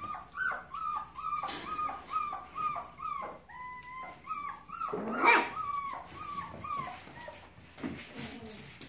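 Young puppies whining and yelping: a quick string of short, high, falling cries about two a second, with one longer drawn-out whine near the middle and a louder yelp about five seconds in.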